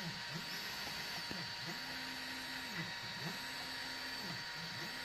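EasyThreed K10 mini 3D printer printing: its stepper motors whine, the pitch sweeping up and down with each move and holding steady on the longer ones, over a steady faint high whine.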